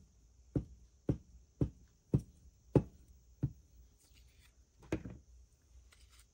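A run of short, dull knocks, about two a second, then one more after a pause: fingers tapping a freshly glued book page down onto card on the craft table.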